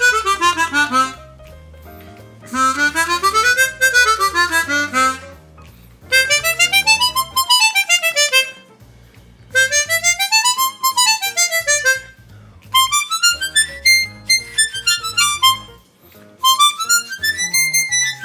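Hohner Super 64 chromatic harmonica playing quick scale runs that climb and fall back, six in a row with short breaks, moving up an octave after every two runs. Its tone is loud and a little flat.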